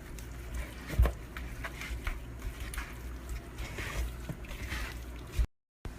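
Hands mixing raw chicken pieces with mustard and spices, giving wet squishing and soft knocks, with one sharper knock about a second in.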